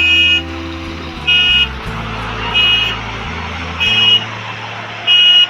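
Reversing alarm of a road-construction machine beeping steadily, about one loud beep every 1.3 seconds, with background music underneath.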